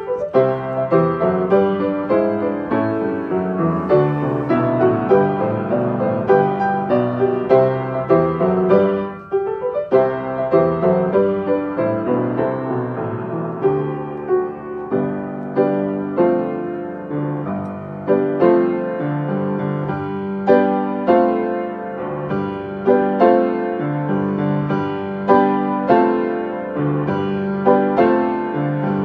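Solo upright acoustic piano playing a piece of chords and melody, with a short pause between phrases about nine seconds in.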